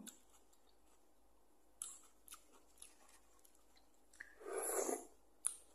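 Close-up mouth sounds of eating noodles: a few short, sharp wet clicks of chewing, then, about four and a half seconds in, a loud slurp of broth drunk from the bowl, followed by one more click.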